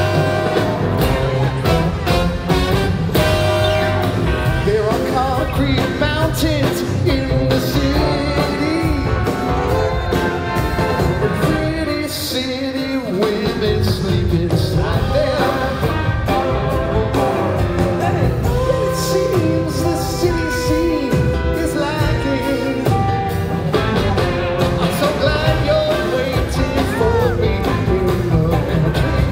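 Live rock band with electric guitars, drums, keyboards and a horn section playing with singing, heard from the audience in a theatre.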